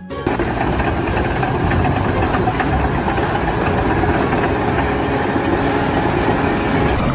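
Machinery running with a steady, loud mechanical rumble and clatter.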